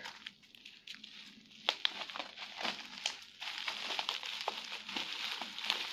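Plastic bag crinkling and crackling as it is handled and unwrapped by hand. It is sparse crackles at first and becomes steadier, denser crinkling a little past halfway.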